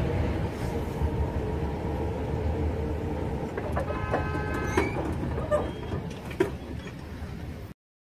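Low rumble with wind on the microphone at a railroad crossing as the gate arm rises. A short ringing tone comes in about four seconds in, with a few sharp clicks after it, and the sound cuts off suddenly near the end.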